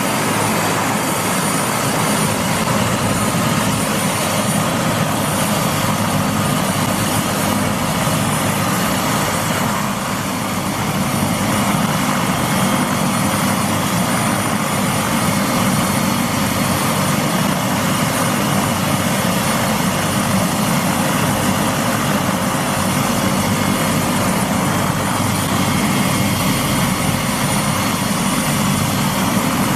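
Bell 407 helicopter running on the ground: its turboshaft engine and turning rotor make a loud, steady noise with a thin high tone over it.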